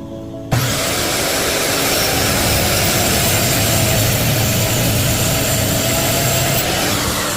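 Power saw running steadily while cutting cherry firewood. It starts abruptly about half a second in and eases off near the end.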